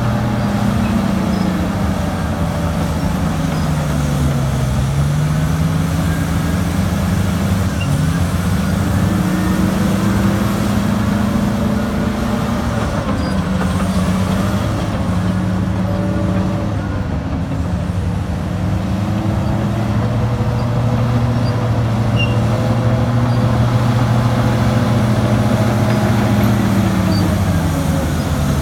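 Heavy diesel engines of a mining front shovel and a crawler bulldozer running hard, the engine note dipping and recovering several times as the dozer pushes rock.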